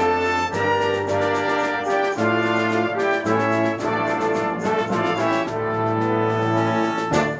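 Brass and percussion ensemble playing: sustained brass chords over long low bass notes, changing every second or so, with percussion strokes throughout and a loud accented hit near the end.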